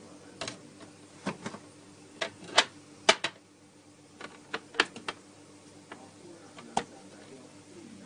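Wooden spatula knocking against the sides of a steel kadai while stirring thick curry: about a dozen irregular sharp clicks, some in quick pairs, loudest around three seconds in.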